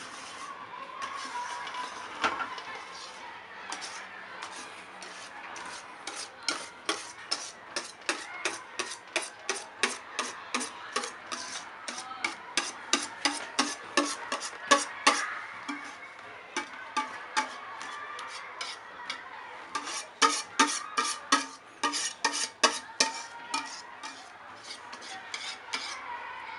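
A wire whisk working thick matcha custard cream in a stainless steel saucepan, its wires scraping and clicking against the pan about four or five times a second. There is a long run of strokes from about six seconds in and a shorter run later, with softer scraping between them.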